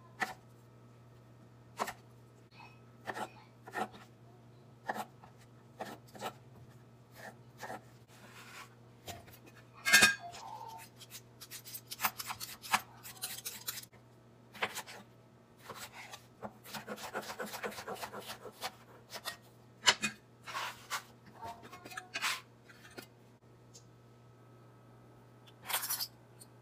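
Kitchen knife cutting strawberries and then cucumber on a wooden cutting board: scattered sharp knocks of the blade on the board, with a stretch of quick, close-set cuts about two-thirds of the way through and a few louder clatters.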